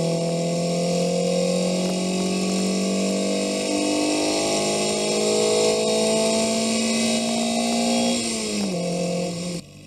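Car engine heard through a knock-monitoring listening device, pulling under load with its pitch slowly rising. A few faint ticks of very slight pinging ride on top: light detonation from advanced ignition timing, still acceptable. About eight seconds in the pitch drops, and the sound cuts off shortly before the end.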